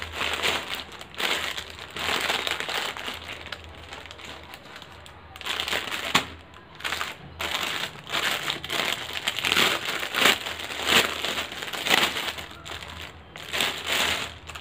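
Plastic packaging crinkling in irregular bursts as hands open a white plastic courier mailer and handle the clear plastic bag inside, with a quieter pause about a third of the way through.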